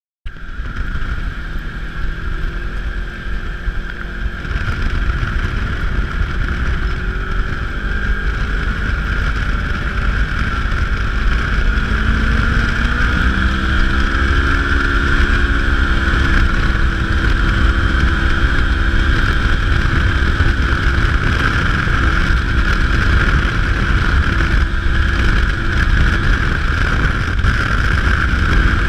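Polaris RZR 1000 side-by-side under way, its engine running with a heavy low rumble and a steady high drone; the engine pitch climbs and then falls back about halfway through as the machine speeds up and eases off.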